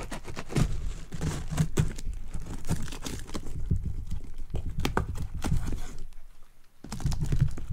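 A knife cutting through plastic packing tape on a cardboard box, then the tape tearing and the cardboard flaps being pulled open: a run of scrapes, rips and knocks with a short pause about six seconds in.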